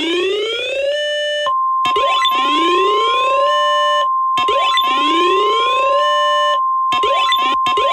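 Synthesized emergency-alert tones: a chord of tones glides upward, settles and cuts off, over and over, repeating about every two and a half seconds. A steady single high beep tone joins about a second and a half in and holds.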